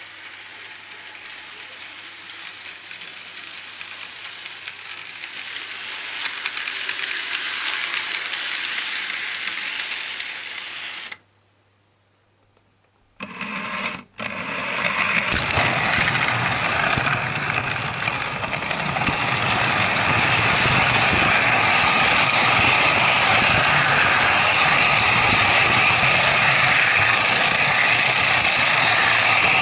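Battery-powered Thomas & Friends toy train's motor and plastic gears running as it travels along plastic track, growing louder over the first ten seconds. After a short silent break it runs on much louder and steady, right at the microphone.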